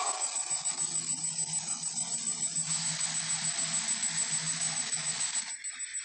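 Cartoon Tyrannosaurus rex sound effect played back: a long, rough, noisy call with a low steady hum beneath it, cutting off abruptly about five and a half seconds in.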